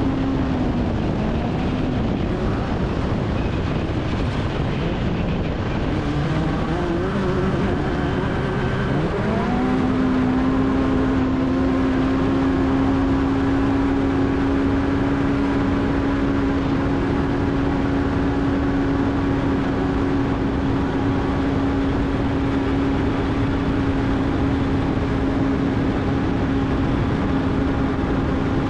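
Off-road race car engine at high, steady revs over a constant rushing noise. The revs drop and climb back twice in the first nine seconds or so, then hold steady.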